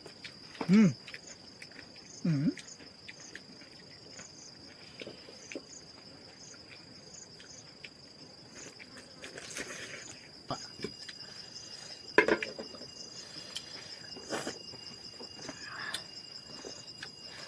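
Insects chirping steadily in a high, continuous trill. A couple of short voice sounds come near the start, and a sharp knock comes about twelve seconds in.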